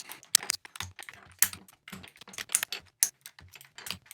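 Mechanical keyboard with SA-profile plastic keycaps clacking: irregular sharp clicks and clacks, several a second, some louder than others.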